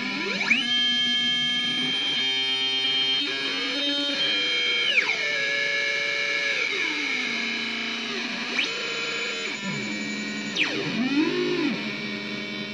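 Quad-oscillator noise synthesizer droning with several tones stacked together, their pitches sliding up and down as its knobs are turned: a rising sweep about half a second in, falling glides near the middle, and quick up-and-down swoops near the end.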